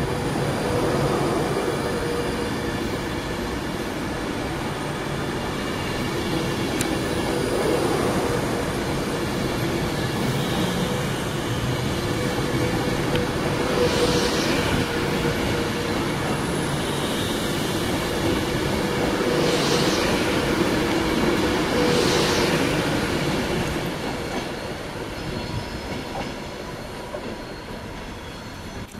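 Alstom Class 390 Pendolino electric train rolling past at low speed as it departs, a steady rumble of wheels on rails with a constant hum. A few brief high-pitched wheel squeals rise and fall midway, and the sound fades near the end as the train draws away.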